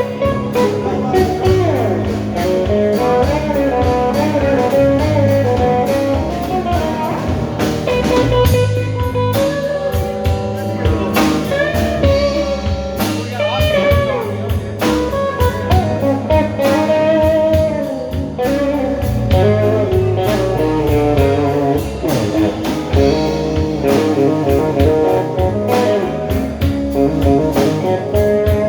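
Slow blues played by a band: lead guitar soloing with bent notes over bass and drum kit.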